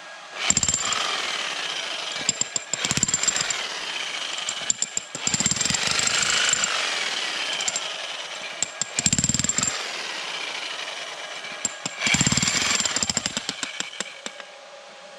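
Electric demolition hammer breaking up rubble. It runs in about five bursts of one to two seconds of rapid hammering, with short pauses and scattered sharp knocks between them.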